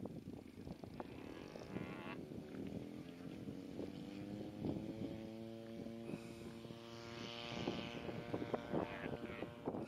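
Scale model Colditz Cock glider's propeller motor running up for take-off: its pitch rises for a couple of seconds, holds steady, then fades as the model climbs away. Wind gusts on the microphone.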